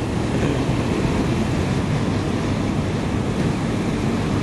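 Steady road and wind noise from a vehicle moving along at speed, an even low rumble with hiss and no changes.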